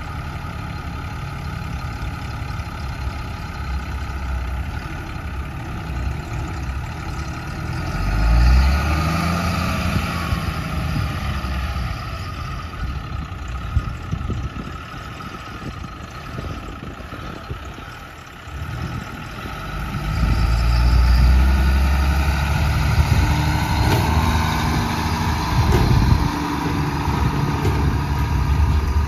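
1995 Ford LNT9000 tender truck's diesel engine running as the truck moves across a field. The engine rises in pitch and gets louder about eight seconds in, eases off around eighteen seconds, then runs louder and steady from about twenty seconds on.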